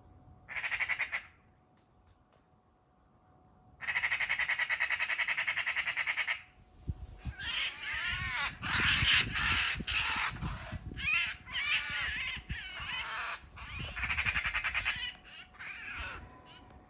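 Eurasian magpie giving harsh, rapid rattling chatter: a short burst about half a second in, then a long rattle from about four to six seconds. A run of irregular harsh squawks and screeches follows, with low thuds underneath: the distress calls of a magpie pinned down by a Eurasian sparrowhawk.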